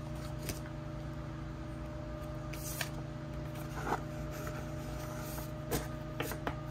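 Steady low room hum, with a few faint soft clicks and rustles of items being handled, spaced a second or two apart.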